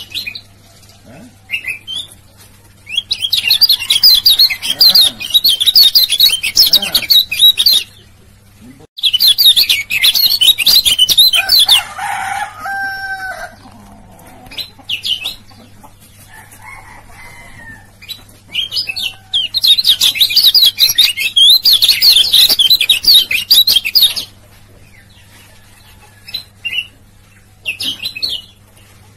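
Male lemon-bellied white-eye (kecial kuning) singing in three long bursts of rapid, high chattering song, with short chirps between them. A lower-pitched call comes about twelve seconds in, and a steady low hum runs underneath.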